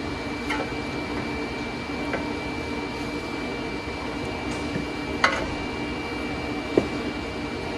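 Steady mechanical hum of a workshop machine, with a few sharp metallic clicks and knocks as a KW coilover strut is handled and seated into a car's front suspension, the two loudest about five seconds in and near the end.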